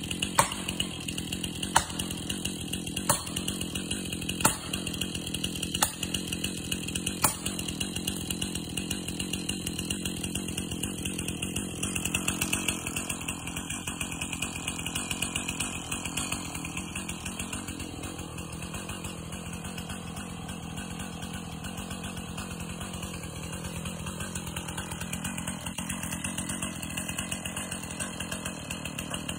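Chainsaw running steadily under a series of sharp strikes from a hand tool on a pine trunk, about one every second and a half for the first seven seconds. From about twelve seconds in, the chainsaw's sound changes as it is put to the base of the pine to cut it, its pitch wavering.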